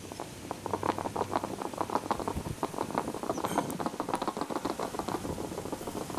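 A small animal making a rapid, uneven run of short squeaks and clicks, several a second.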